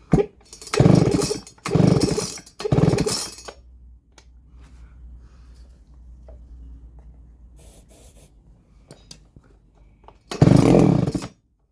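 Baumr-AG SX92 two-stroke chainsaw being pull-started: four quick pulls of the starter cord in the first few seconds and one more near the end. The engine turns over on each pull but does not catch, which the owner puts down to it not getting fuel.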